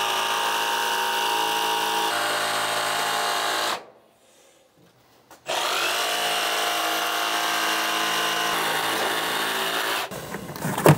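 Milwaukee Fuel brushless cordless jigsaw cutting through a vinyl floor plank, its motor running at a steady whine. It cuts out for about a second and a half about four seconds in, then runs again and stops near the end.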